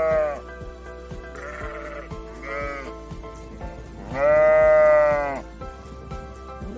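Sheep bleating four times, the longest and loudest call about four seconds in, over background music with a steady beat.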